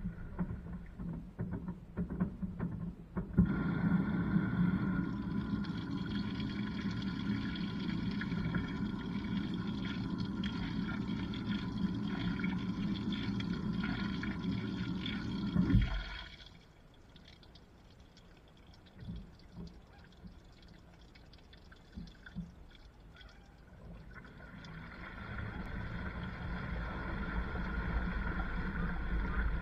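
LG washing machine drum tumbling a wash load, heard from inside the drum: water and the load slosh over a steady motor whine. The drum stops with a thump about sixteen seconds in and pauses with a few knocks. It starts turning again near the end.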